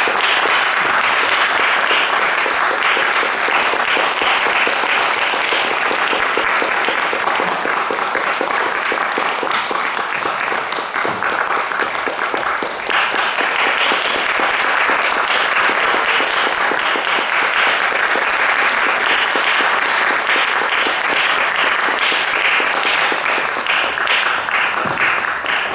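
Audience applauding in a hall, a dense steady clapping that dips briefly about halfway through and then picks up again.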